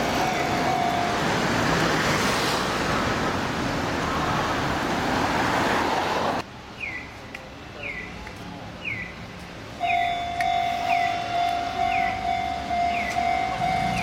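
A train passing over a level crossing with a steady rushing rumble, the crossing's warning bell ringing over it. It cuts off abruptly about six seconds in to the electronic warning bell of another crossing, sounding a short falling tone over and over, and a steady tone joins it about four seconds later.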